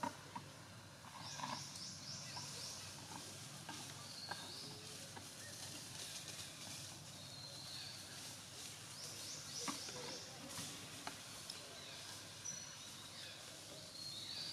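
Quiet outdoor background with short high chirps now and then and a few faint clicks.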